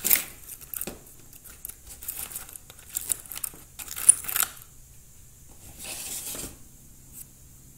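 Hands rummaging through a small plastic tray of loose aluminium LED backlight pieces, clinking and rattling them, with paper rustling among them. The clatter comes in several short bursts and dies down near the end.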